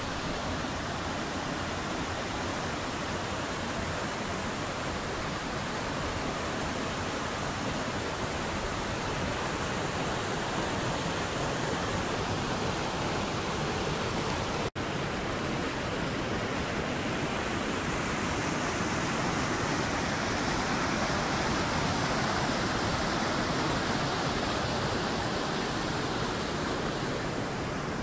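Steady rush of a rocky mountain river, water pouring down small cascades over boulders. The sound drops out for an instant about halfway through.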